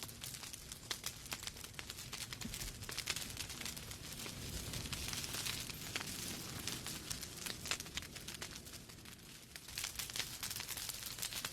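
Wood fire in a fireplace crackling, with many small sharp pops and snaps over a low steady rumble of burning logs. The crackling is a little sparser about nine seconds in.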